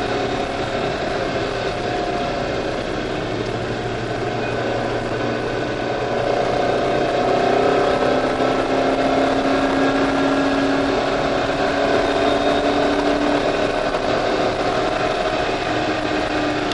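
C5 Corvette Z06's LS6 V8 engine running at speed, heard from inside the cabin; the engine note shifts and grows louder about six seconds in.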